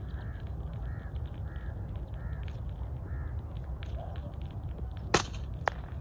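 A bird calls about five times in the first few seconds over a steady low rumble. About five seconds in comes a single sharp shot from a .22 Edgun Matador R3M PCP air rifle, and half a second later a fainter click.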